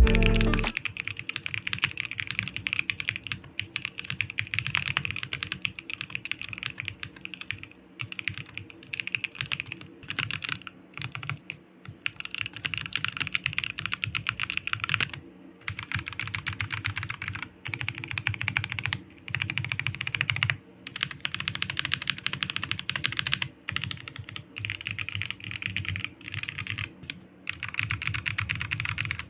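Typing on an Eweadn MT75 75% gasket-mounted mechanical keyboard with Jixian Red linear switches and PBT keycaps. The keystrokes come in quick runs broken by brief pauses.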